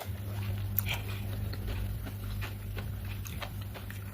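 Someone chewing and biting food, with a few faint crunches, over a steady low electrical hum that starts abruptly at the beginning.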